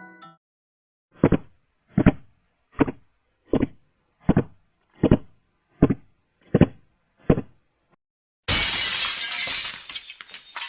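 Nine evenly spaced dull thuds, about one every three-quarters of a second, then a sudden loud crash of glass shattering that rings and fades over a couple of seconds.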